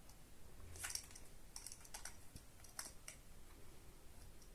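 Faint, irregular small plastic clicks and taps as a battery is worked into the GoPro Hero 12 Black's battery compartment, about half a dozen over a few seconds.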